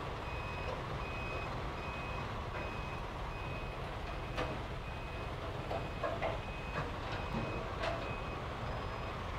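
A vehicle's reversing alarm beeping steadily, short beeps at one pitch a little under two a second, over a steady low background rumble.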